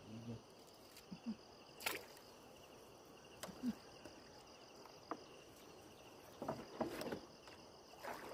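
A gill net being pulled by hand from the river into a wooden canoe, with several small splashes and drips of water at irregular intervals. A steady chirping chorus of insects runs underneath.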